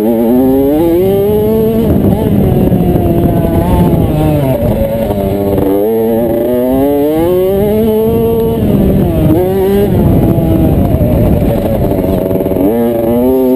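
Kawasaki KX65 two-stroke motocross bike engine at race pace, heard close from on board: the pitch climbs hard under throttle and drops off again about four times, rising and falling with the corners and straights.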